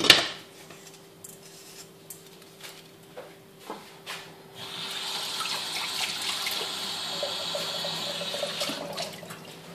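A metal clank as a pot part is set down, then water running steadily for about four seconds, starting about halfway through and stopping near the end.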